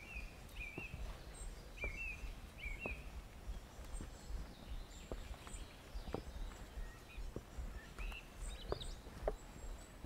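Footsteps on wooden stairs and boards, a hollow knock about once a second, over a low steady rumble. Small birds chirp through the first few seconds and again near the end.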